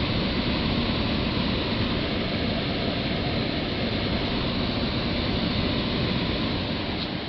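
Fedders 12,000 BTU window air conditioner running, its fan driving a steady rush of air through the condenser coil. The repaired fan motor is running freely, and the unit is shedding its heat well. The rush eases slightly near the end.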